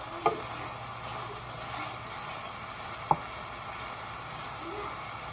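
Steady sizzle of food frying, with a wooden spoon stirring in a steel stockpot. The spoon knocks sharply against the pot twice, once just after the start and once about three seconds in.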